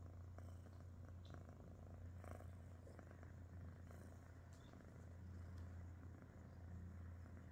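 British Shorthair kitten purring steadily, a faint low rumble.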